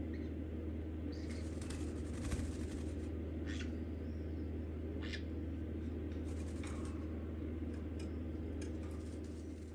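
Green-cheeked conure giving short, high squeaks and chirps at irregular intervals over a steady low hum.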